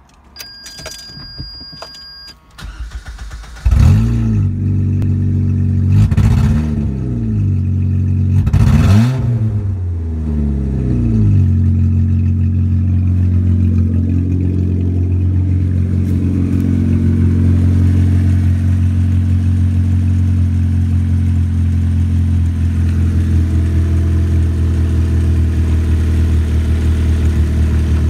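Opel Astra G's 2.2-litre Z22SE four-cylinder petrol engine starting up about four seconds in. It is revved three times, each rev rising and falling in pitch, then settles into a steady idle.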